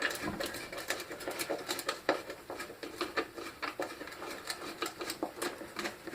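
Irregular light clicks and taps of hands and tools working on the aluminum housing of a paging horn speaker as it is taken apart, several small knocks a second.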